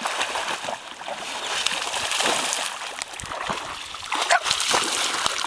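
Irregular splashing and sloshing of shallow lake water as a dog wades and lunges through it and a child throws up splashes with her arms.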